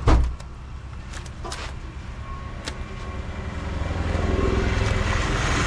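A motor engine running, growing louder over the second half. A single loud knock comes right at the start, and a few faint clicks follow.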